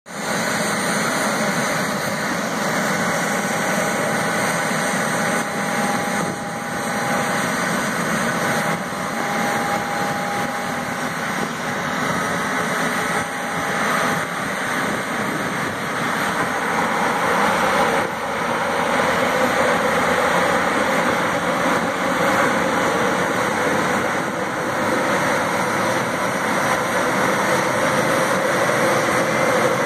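Steady jet whine and rush from a Boeing 737 being pushed back on the ramp, getting a little louder about eighteen seconds in.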